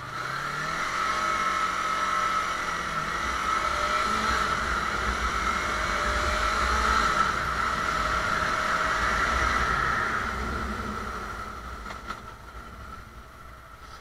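Sport motorcycle engine pulling away and accelerating, then running steadily at speed with low wind rumble. It eases off and fades about ten seconds in.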